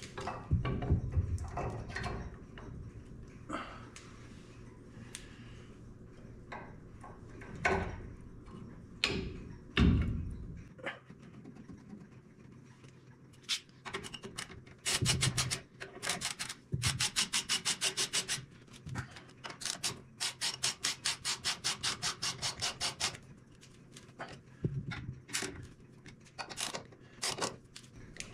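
A few knocks of metal parts and tools being handled, then a hand ratchet clicking in long runs of quick, even clicks as the disc brake caliper bolts are run in.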